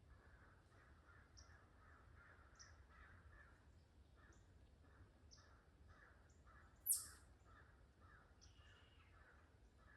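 Distant crows cawing over and over, about two calls a second, with faint high chips from small birds. One sharp high click, the loudest sound, comes about seven seconds in.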